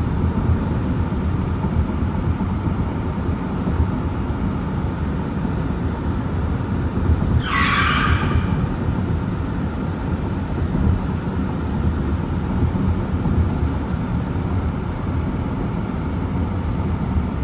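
Steady road and engine noise inside a car cabin cruising at highway speed, with a brief higher whoosh about halfway through.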